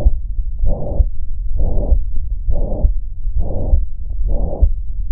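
Heart murmur heard through a smartphone stethoscope: a rushing sound with each heartbeat, repeating about once a second over a steady low rumble of chest contact.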